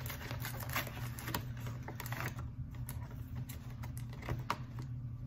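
Cardboard advent calendar door being picked and torn open along perforations that won't tear cleanly: a quick run of small crackles and clicks for about two and a half seconds, then a few scattered clicks and rustles.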